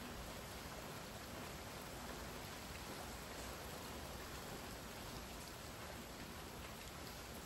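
Steady rain falling, an even hiss without change.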